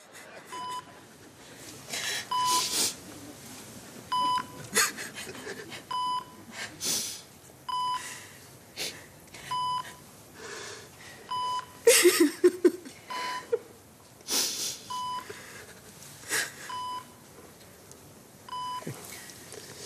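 Hospital patient monitor beeping steadily, one short tone about every two seconds. Between the beeps come sniffling and breathing sounds, with a brief louder sob about twelve seconds in.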